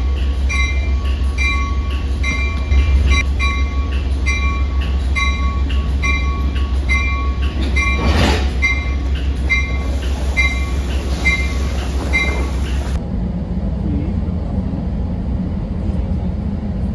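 Amtrak train standing at the platform: a steady low engine rumble with a repeated electronic beep, a little under once a second, from the bi-level coach/baggage car. About thirteen seconds in, the beeping stops suddenly and only a lower, steady hum remains.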